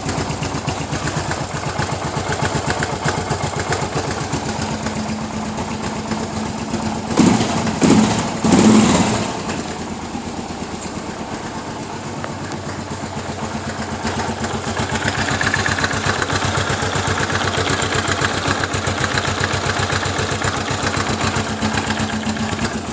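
Suzuki DR 800's big air/oil-cooled single-cylinder engine idling with an even beat, with three quick throttle blips about seven to nine seconds in.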